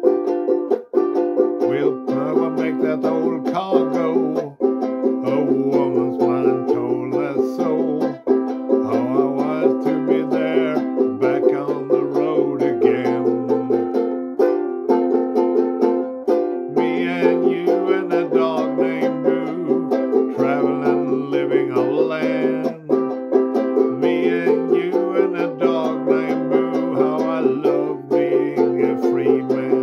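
Instrumental break: a banjo-ukulele strums steady chords while a harmonica in a neck rack plays the melody, with a low bass line underneath.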